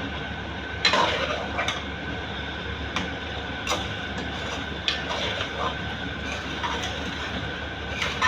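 A metal spoon stirring mutton in a karahi, knocking and scraping against the pan every second or so over a steady sizzle. This is the bhunai stage, stir-frying the meat with tomatoes and spices. The loudest clanks come about a second in and just before the end.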